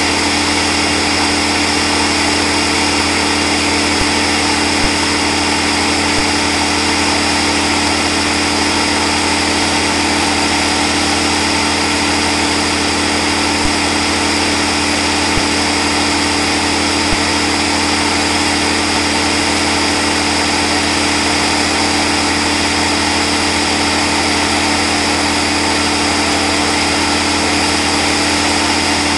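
Chainsaw engine running at a steady high pitch, held without letting up for the whole stretch.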